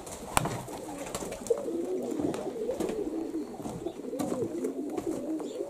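Domestic pigeons cooing, their rising-and-falling coos overlapping one after another, with a single sharp click about half a second in.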